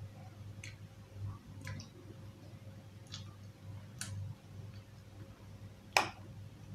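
Metal spoon making a few light clicks while eating, then one sharp clink against a dish about six seconds in, over a low steady hum.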